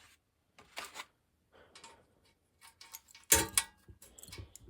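Scattered metal clicks and clinks of a socket wrench and sockets on mower-engine bolts, with one heavier metal clunk a little past three seconds in.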